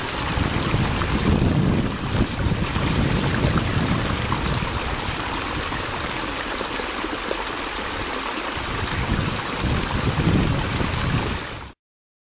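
Small stream running and splashing over rocks, a steady rushing noise, with a gusty low rumble of wind on the microphone. It cuts off abruptly near the end.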